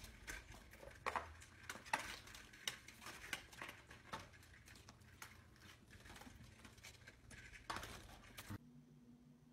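Vertical blind slats clattering and knocking irregularly as a rabbit dashes through and against them. The clatter stops abruptly near the end.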